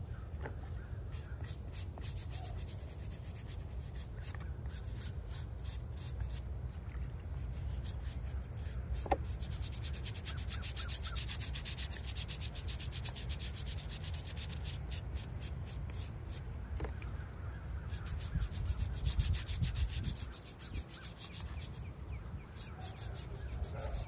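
Brush scrubbing a small headstone: quick back-and-forth strokes in runs, with short pauses between them.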